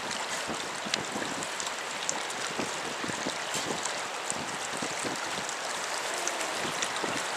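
Raw sewage welling up out of a surcharged drain into standing floodwater: a steady rush of churning water with small splashes throughout.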